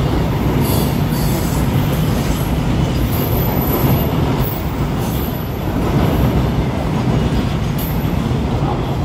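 Freight train's covered box wagons rolling past at speed: a steady heavy rumble of steel wheels on rail, with brief high-pitched wheel squeals now and then.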